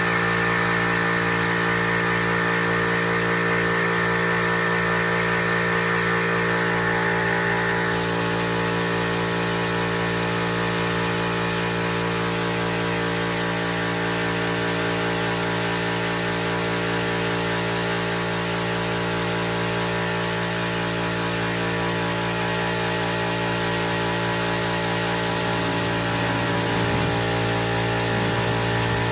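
Paint spray gun hissing steadily as it lays clear coat on a car, over a steady mechanical hum with several pitched tones. A high whine fades out about eight seconds in.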